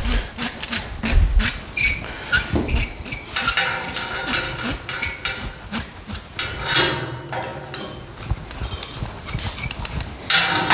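Irregular clanks and clicks of steel exhaust tubing and a locking clamp, metal knocking on metal as the clamp is set and locked onto the pipe.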